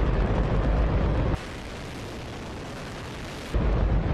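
Hydrogen-oxygen rocket engine firing: a dense, continuous roar heavy in the bass. About a second and a half in it drops to a thinner, quieter rush for about two seconds, then the full roar returns.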